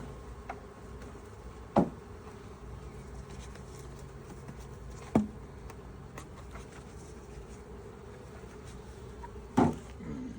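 Honeybees buzzing steadily around an open hive, with three sharp knocks from hive equipment being handled.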